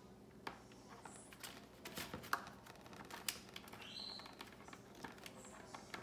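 Baby African grey parrot pecking at seed mix in a metal dish: faint, irregular light clicks and taps of its beak against the dish and seeds, with a brief high squeak about four seconds in.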